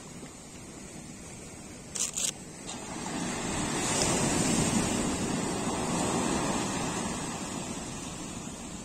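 Ocean surf on a sandy beach: a wave swells up about three seconds in, breaks and washes up the shore, then slowly fades. Two brief knocks come just before it.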